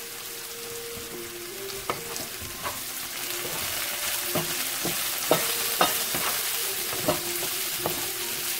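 Green beans and beet strips sizzling in oil in a nonstick frying pan while being stirred with a wooden spatula, which knocks against the pan several times, more often in the second half.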